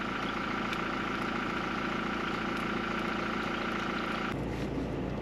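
Toyota Hilux pickup engine idling steadily. About four seconds in it changes abruptly to a deeper, steadier rumble.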